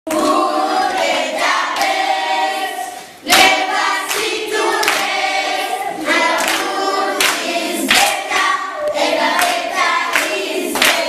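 A class of children singing together in chorus, in phrases of held notes with a short break about three seconds in.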